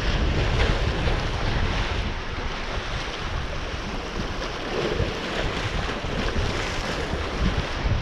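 Wind buffeting the microphone in uneven gusts over a steady rush of water.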